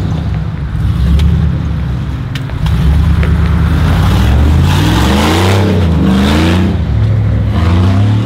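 Chevrolet Silverado pickup's engine running as the truck pulls away and accelerates, its pitch rising twice near the middle.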